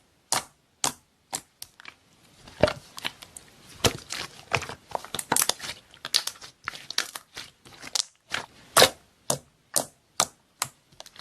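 Slime being squeezed and pressed, making crisp crackling snaps: evenly spaced, about two a second at first, then denser and more irregular crackling.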